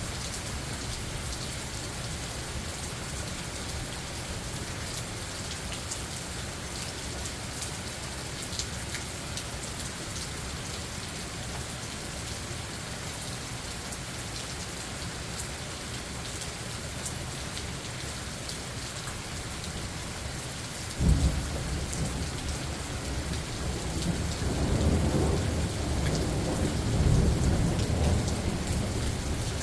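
Steady rain falling in a forest, then about two-thirds of the way through a clap of thunder breaks suddenly into a deep rolling rumble that swells and carries on under the rain.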